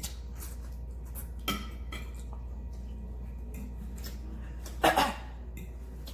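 A fork clinking and scraping against a dish during eating, with small scattered clicks and a brief louder noise near the end.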